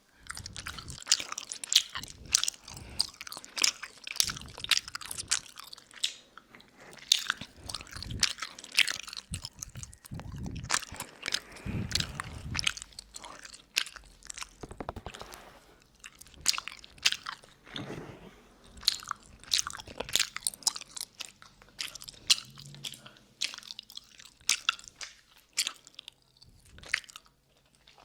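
Close-up wet mouth sounds from a hard lollipop being sucked and licked, with many irregular sharp clicks and smacks, recorded close on a 3Dio binaural microphone.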